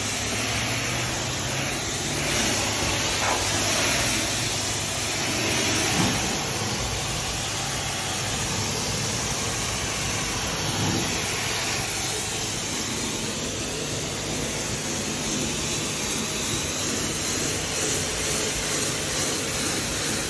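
Pressure washer wand spraying water against a cargo trailer's sheet-metal side and wheels: a steady hiss of spray with water splashing onto the wet concrete.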